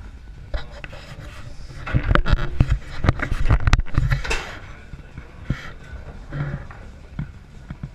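Foosball play on a Tornado table: the ball and the rods knocking and clacking, with a quick flurry of hard hits in the middle.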